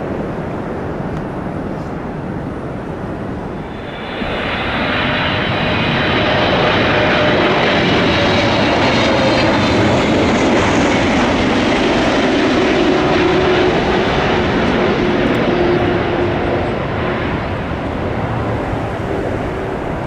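Jet airliner's engines passing by: the roar swells sharply about four seconds in, stays at its loudest for several seconds, then slowly fades.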